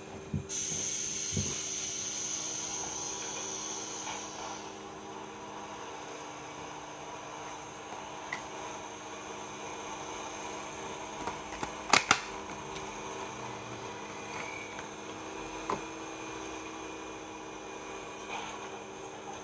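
Steady low hum with a faint hiss, and light plastic handling noises from a clear plastic packaging case and acrylic toy being turned in the hands; a quick pair of sharp plastic clicks comes about two-thirds of the way through.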